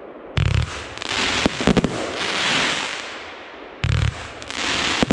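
Albert Feuerwerk 'Push it to the Limit' 25 mm fireworks compound cake firing two shots, heard from about 70 m away. Each shot begins with a deep launch thump, followed about a second later by a few sharp burst cracks and then a long hissing crackle of the stars.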